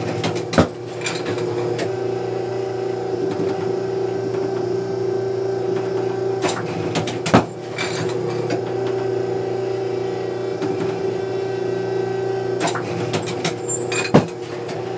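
Automatic clay-target trap machine with its motor humming steadily, and three loud mechanical bangs about seven seconds apart, each amid a clatter of clicks, as the spring-loaded arm throws a clay target and the machine cocks and loads for the next.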